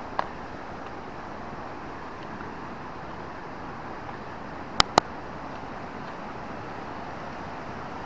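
Steady rushing of a mountain river, with a short click near the start and two sharp clicks in quick succession about five seconds in.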